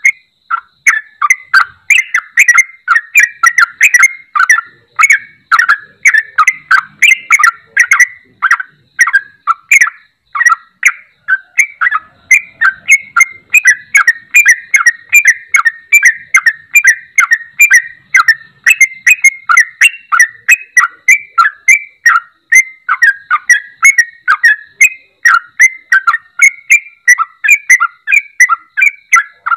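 Yellow-vented bulbul (trucuk) singing a loud, continuous, rapid chattering song of short notes, about four a second. It is the kind of lively song that keepers play to get a silent trucuk to start singing again.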